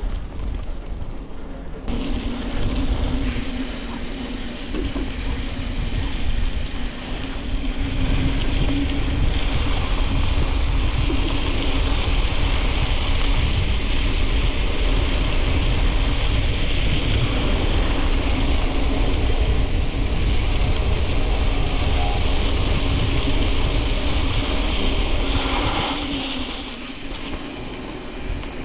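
Wind rushing over the microphone of a moving bicycle, with a steady hum and hiss from the heavy bike's tyres rolling on the road. It grows louder about two seconds in and again about eight seconds in, then eases near the end.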